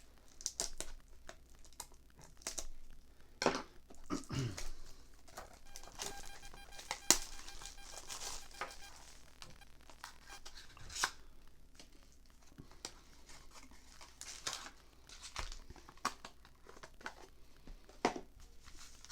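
Plastic shrink-wrap crinkling and tearing as a Pokémon card booster bundle is unwrapped, with irregular crackles and handling clicks.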